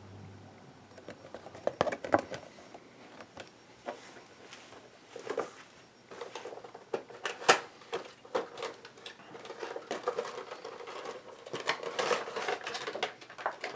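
A cardboard Funko Pop box and its plastic packaging being handled and opened by hand: irregular clicks, taps and crinkly rustling, busiest in the second half.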